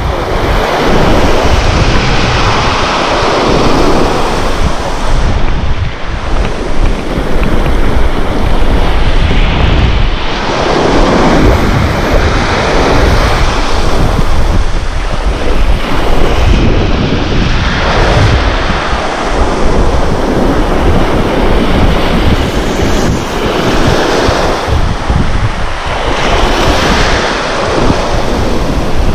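Small waves breaking and washing up a sand-and-pebble shore. The noise swells and ebbs every few seconds as each wave surges in and draws back, with wind rumbling on the microphone.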